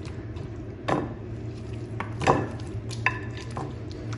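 Raw chicken pieces being laid and pressed by hand into a thick yogurt and spice marinade in a clay dish: a few short wet squelches and slaps about a second apart, the loudest a little past halfway, over a low steady hum.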